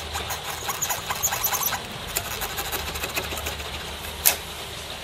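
Scratchy rubbing with small squeaks at the Commodore 1541-II floppy drive's read/write head mechanism as fingers work it, with one sharp click about four seconds in.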